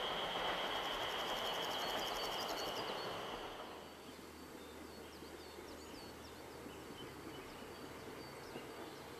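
A diesel train's running noise, with a steady high whine, fades away over the first three to four seconds. It leaves a quiet countryside background with a run of short high bird chirps a few seconds later.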